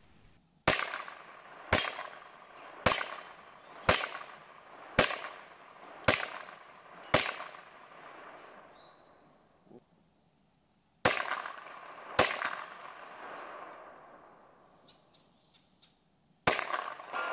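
Ruger PC Carbine, a 9mm carbine, fired in a steady string: seven shots about a second apart, a pause of about four seconds, two more, then one more near the end, each shot trailing off in a short ring.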